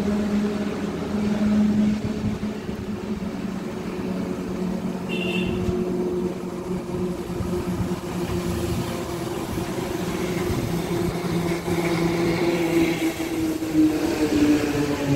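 A motor vehicle engine running steadily with a low, even hum, its pitch shifting a little near the end.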